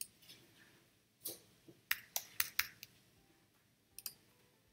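Scattered sharp clicks and light taps from something small being handled, a quick run of them in the middle and two more near the end.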